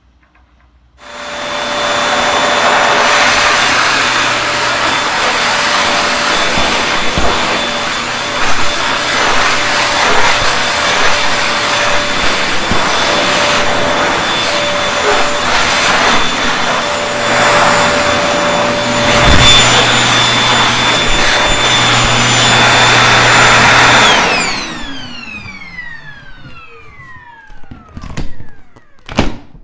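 Vacuum cleaner switched on about a second in, running loud with a steady whine and shifting suction noise. It is then switched off and the motor winds down with a falling whine, followed by a couple of knocks near the end.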